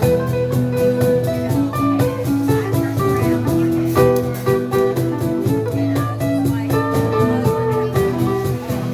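Live band playing an instrumental passage of a song: guitar notes over a steady bass line and beat.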